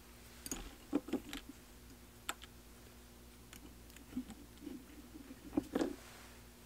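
Scattered small clicks and ticks of hands working a fly at a fly-tying vise: tying thread, bobbin and materials being handled, over a faint low steady hum.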